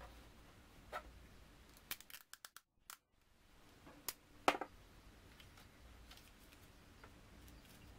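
Hands handling stiff folded paper pieces and tape on a tabletop: a scatter of short, sharp clicks and taps, the loudest a quick run of clicks about halfway through, with a brief dropout to dead silence a little before that.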